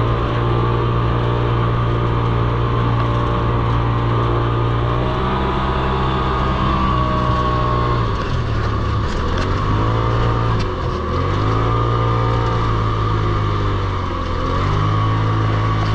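A vehicle engine running steadily. In the second half its revs dip and climb back three or four times.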